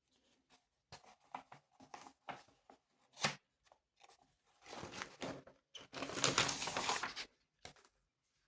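Paper rustling and crackling, as of a workbook's pages being handled and turned: a run of small clicks and crackles, then two longer rustles in the second half, the later one the loudest.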